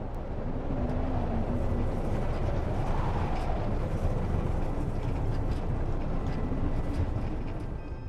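Storm wind rushing and gusting, with a deep rumble and a faint howl that rises and falls. It swells in at the start and fades out near the end.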